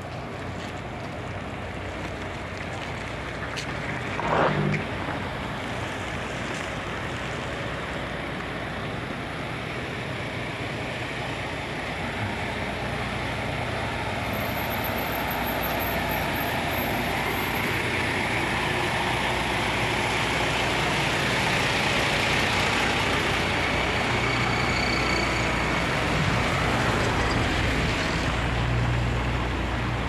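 Heavy diesel engine of a dump truck running steadily, with street noise, growing gradually louder. A brief loud sound stands out about four seconds in.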